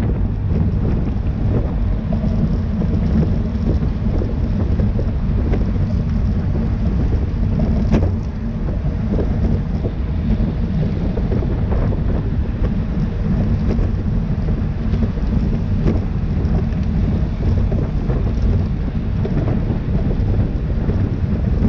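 Wind buffeting a cyclist's camera microphone at riding speed: a steady low rumble, with a few faint ticks.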